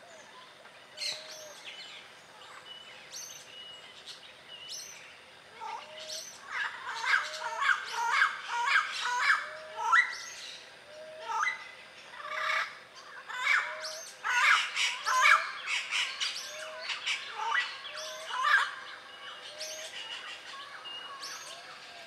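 Yellow-naped parrots calling: a loud, rapid run of rough calls that begins a few seconds in and dies down near the end. Behind them another bird repeats a short low note about once a second.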